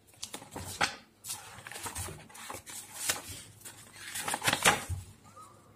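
Paper leaflets and a card booklet being handled and shuffled: irregular rustling and light papery taps, loudest about three-quarters of the way through.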